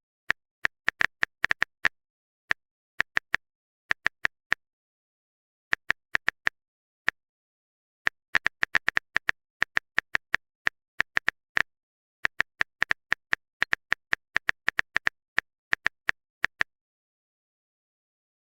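Typing sound effect: short, sharp clicks in irregular bursts against complete silence, stopping about two seconds before the end.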